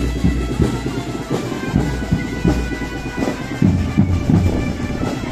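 Indonesian school drum band (drumband) playing on the march: a steady drum beat of about three strokes a second under sustained wind-instrument notes.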